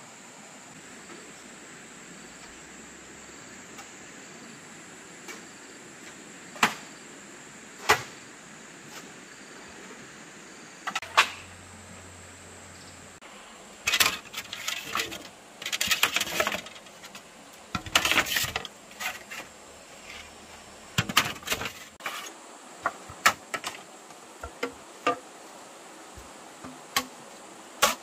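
A steady, high-pitched insect drone in the background, with irregular sharp knocks and clatters. The knocks come singly at first and thicken into a busy run through the middle, then thin out again.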